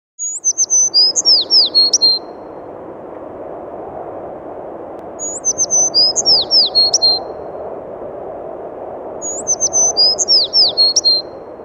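A songbird singing the same short phrase of quick, falling chirps three times, about four seconds apart, over a steady rushing background.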